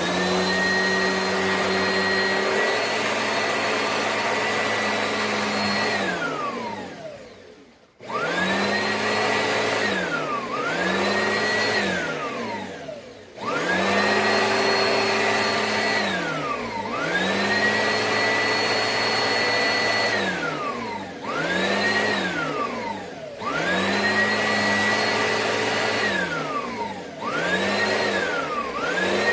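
Oreck Commercial 2100RHS upright vacuum motor with a high whine. It is switched off and on again and again: each time the whine falls in pitch as the motor winds down, then climbs back to full speed. The longest spin-down comes about six seconds in.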